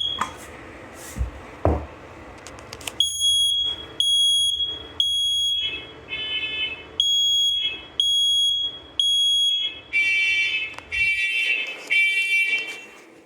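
First Alert SMI100-AC hardwired smoke alarm sounding on test, after a couple of low knocks: a loud, high, steady beep about once a second in groups of three with a longer gap, the temporal-three smoke pattern. Toward the end, other alarms with a lower tone beep in the same rhythm.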